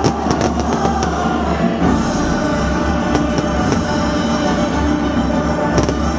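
Loud music playing during a fireworks display, with several sharp firework cracks in the first second and another near the end.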